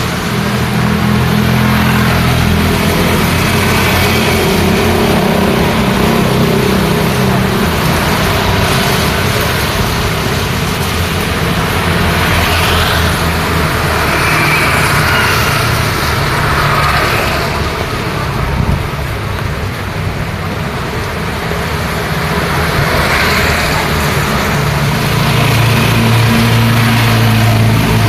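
Road traffic in the rain: a steady wet hiss of rain and tyres on wet pavement, with vehicle engines running low and loudest near the start and again near the end.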